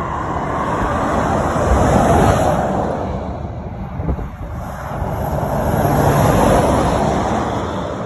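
Articulated lorries driving past close by, one after another. The engine and tyre noise swells as the first passes about two seconds in, dips, then swells and fades again as a second passes around six seconds in.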